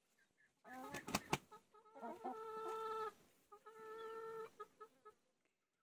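Chickens calling in a flock: a loud call about a second in, cut by two sharp clicks, then two long drawn-out calls of about a second each with a few short clucks between.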